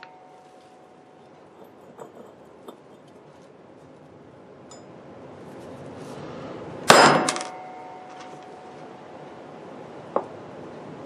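A ball-peen hammer strikes a steel socket held against the Philco 90 speaker's stuck field-coil pole piece about seven seconds in, giving one sharp metallic clang with a brief ringing tail; it is being used to drive the pole piece out of the speaker frame. A few faint metal clinks come about two seconds in.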